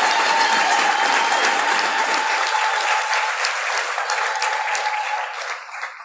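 Audience applauding, a dense patter of many hands clapping that thins out over the last few seconds and dies away near the end.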